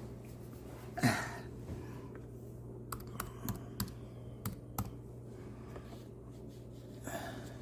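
Scattered sharp clicks of a computer keyboard and mouse, about half a dozen spaced through the middle, over a steady low hum.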